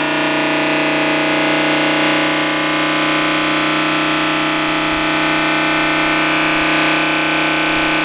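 Homemade belt-driven air raid siren, its reworked five-port rotor spun by an electric motor, sounding a loud, steady tone at constant pitch with many overtones. It is not at full volume because the rotor has only five ports against the stator's ten.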